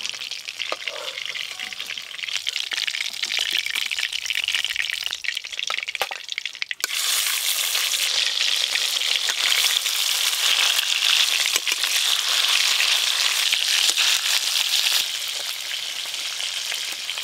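Fish pieces sizzling as they fry in hot mustard oil in a wok, with a few spatula knocks in the first couple of seconds. The sizzle turns suddenly louder about seven seconds in.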